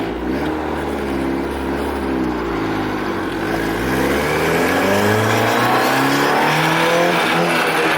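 Turbocharged Honda Civic engine under acceleration: its pitch sags over the first few seconds, then climbs steadily and grows louder as it revs up from about halfway through. The turbo is not building boost, with the engine still pulling vacuum at wide open throttle.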